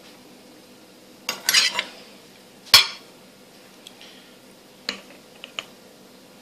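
Metal spoon clinking and scraping against a small glass jar while scooping a thick sauce: a quick cluster of knocks about a second in, one sharp clink, the loudest, a little later, and a few lighter taps near the end.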